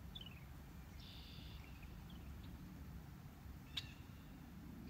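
Small songbirds calling: a few short high notes at the start and a buzzy trill about a second in, with a single sharp click near the end over a faint low rumble.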